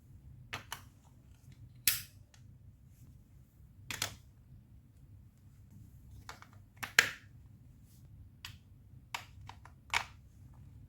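Sharp, separate clacks of hard plastic from a Lego Duplo block marble run, about eight of them at uneven intervals, the loudest about seven seconds in.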